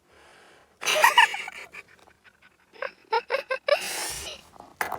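A person's voice in short bursts of laughter-like pulses, then a breathy gasp about four seconds in.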